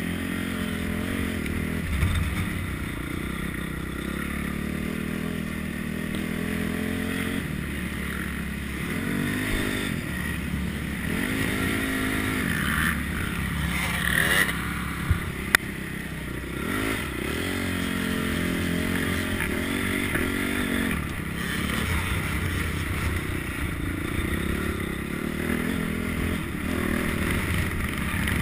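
Motocross dirt bike engine revving up and down again and again as the rider accelerates and shuts off through the corners, heard over wind noise. Two sharp knocks about halfway through.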